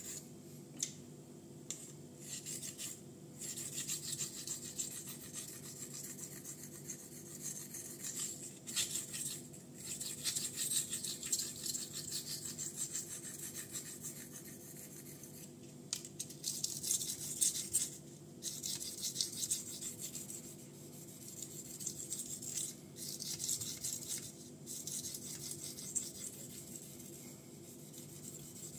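Sharpening on a wet Japanese Honyama natural whetstone of 5000 grit: at first a small block rubbed over the stone's face, then the 440C steel blade of a Ganzo Firebird folding knife stroked across it. A soft, gritty scraping in repeated strokes with short pauses between them.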